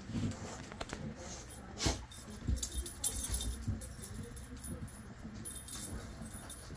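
A dog rummaging with its nose through a fabric box of toys, knocking and rustling the rubber and rope toys about, with a sharper knock about 2 seconds in and another about a second later, while its collar tags jingle.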